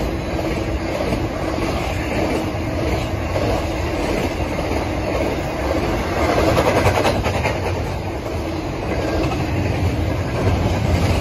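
Double-stack intermodal freight train's container well cars rolling past at speed: a loud, steady rumble and clatter of steel wheels on rail, briefly louder about six seconds in.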